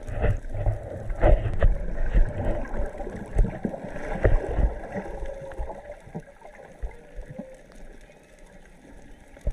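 Underwater sound of humpback whale song: faint, drawn-out moans that waver slightly in pitch, heard a few times. Over them are low thumps and sloshing of water moving against the microphone, loudest in the first half.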